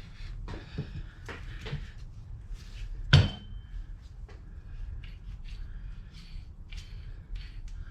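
Metal tools and parts being handled during work on a car's steering rack: scattered light clinks and knocks, with one loud metallic clank about three seconds in that rings briefly.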